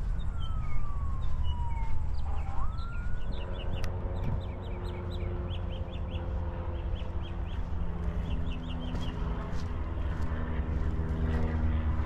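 A siren wailing, its pitch sliding down over about two seconds and then swinging back up, over a steady low rumble of road traffic. Small birds chirp throughout in short, quick runs.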